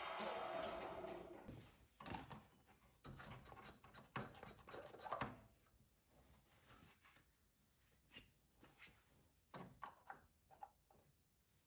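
The 17 hp Kawasaki engine of a John Deere LX188 lawn tractor fades away in the first second or two, its oil being rechecked after a test run. Then faint, scattered clicks and taps from hands pulling and handling the plastic oil dipstick.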